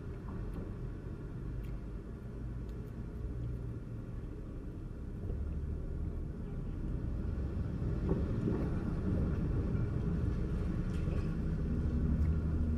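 Low rumble of a motor vehicle's engine, growing louder from about halfway through.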